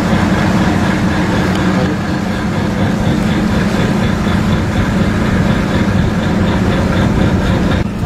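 Tugboat engine running steadily: a heavy, even drone with a fast, regular light ticking on top.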